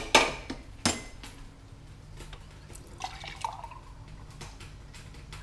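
Plastic and metal dishware clattering a few times as things are pulled from a dish rack, then tap water running into a drinking glass.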